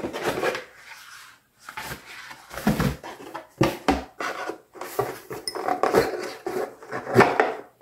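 Cardboard gift box and ceramic cups being handled: the lid comes off and the cups are shifted in their insert, giving a series of irregular knocks and scrapes, the heaviest about three and four seconds in.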